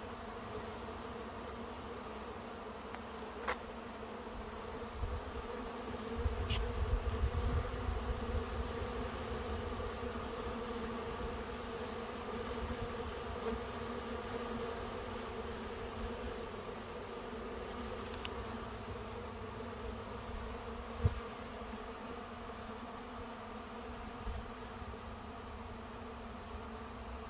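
Many honeybees buzzing steadily around an open hive, a continuous droning hum of wingbeats. A low rumble rises briefly about six to nine seconds in, with a few faint clicks.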